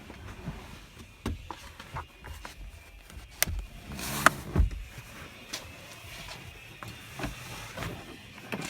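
Scattered light knocks, clicks and rubbing of plastic parts and tools being handled on a workbench, loudest in a short cluster about four seconds in.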